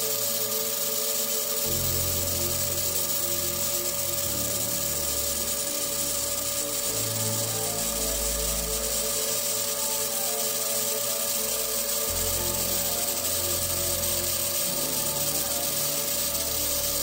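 Background electronic music with a stepping bass line, over the steady hiss of a TIG welding arc fusing 304 stainless steel tubing.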